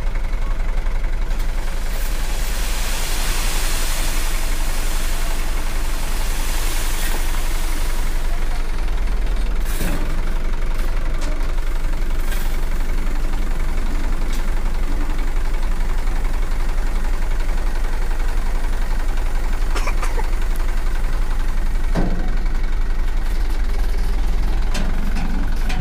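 Light dump truck's engine running steadily while its hydraulic hoist works the tipper bed, with a rushing hiss for the first several seconds as the load of soil slides off. The bed is then brought back down, with a few sharp knocks in the second half.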